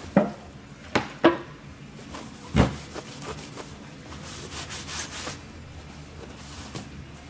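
Acetone-dampened paper towel wiping and rubbing across a ribbed sluice mat, a soft swishing rub in the middle of the stretch. It comes after a few sharp knocks in the first couple of seconds, the loudest about two and a half seconds in.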